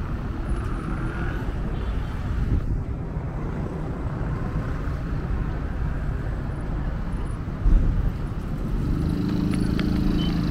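Street traffic: a steady low rumble, a single thump about three-quarters of the way through, and a steady pitched hum like an engine joining near the end.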